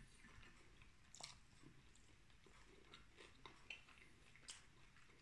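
Faint close-up chewing of a mouthful of grilled pork neck and fried potatoes, with scattered small wet clicks and crackles from the mouth.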